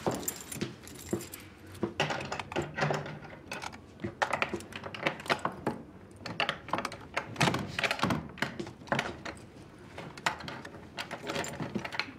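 A bunch of keys jingling and a key clicking and scraping in a door lock as someone tries again and again to unlock it, irregular metallic clicks and rattles. The key will not open the lock, because the lock has been changed.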